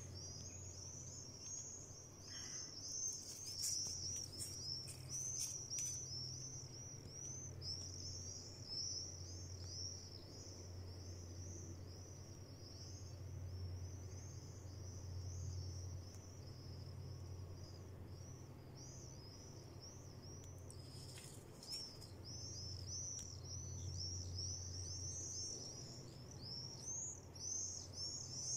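Common swifts screaming: an almost unbroken stream of shrill, high-pitched chirps, over a low steady hum.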